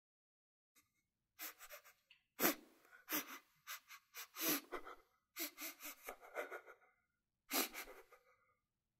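A person's breathy gasps and heavy breaths in a string of sharp bursts, the loudest about two and a half seconds in.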